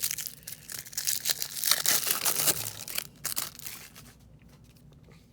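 A 1994 Flair trading card pack being torn open, its wrapper crackling and crinkling for about three seconds.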